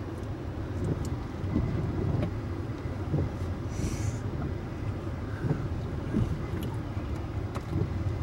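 Steady low rumble of storm wind and rain against a vehicle. A windshield wiper swishes across the glass about halfway through, and a few sharp ticks of hail hit the car.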